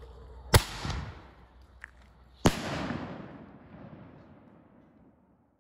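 Consumer artillery-shell firework going off: a sharp bang as it launches from the mortar tube, then about two seconds later a loud report as the shell bursts. Each bang echoes and dies away over a couple of seconds.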